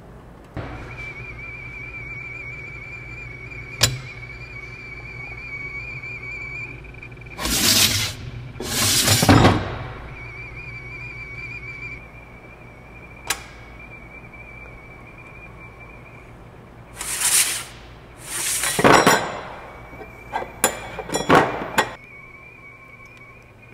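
ClearPath servo motor with a 100:1 gearbox turning a rotary parts-loader plate: a steady high whine that runs for several seconds, stops and starts again three times. It gives a sharp click about four seconds in and again midway, and several loud bursts of hiss-like noise fall in the pauses.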